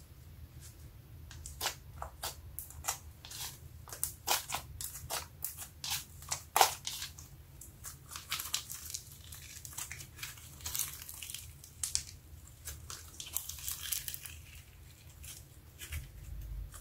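Thick slime kneaded and stretched by hand, giving a rapid, irregular run of sharp sticky crackles and pops that thins out near the end, over a low steady hum.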